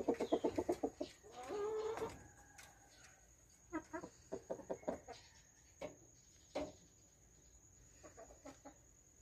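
Chickens clucking: a fast run of about ten clucks a second at the start, a short drawn-out call a little later, then another series of clucks about four seconds in and single clucks after that.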